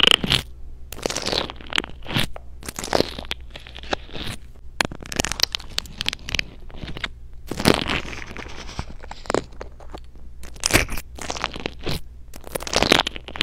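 Crunchy bingsu-bead slime being squeezed and pressed by hand, giving irregular crackles and crunchy pops throughout.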